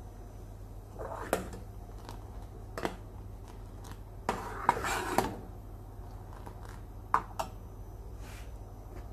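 Steel ladle clinking and scraping against a steel saucepan while boiling milk tea is stirred: a few separate sharp clinks, and about halfway through a second-long stretch of quick scraping and knocking.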